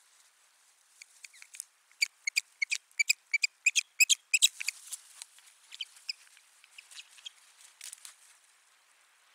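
Osprey calling: a rapid run of sharp, high whistled calls, several a second, strongest between about two and five seconds in, then fewer and softer calls. These are agitated calls of the kind given in a territorial dispute at the nest.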